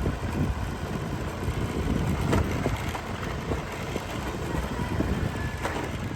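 Motor vehicle engine running under a steady rumbling, wind-like noise, with a few light knocks.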